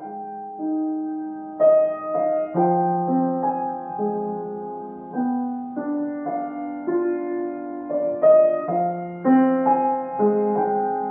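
Solo piano music: a slow, gentle melody over sustained chords.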